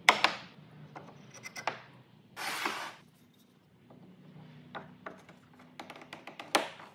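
Wooden pieces being handled on a wooden workbench: a sharp knock at the start, scattered light clicks, a brief scraping slide about two and a half seconds in, and another knock near the end.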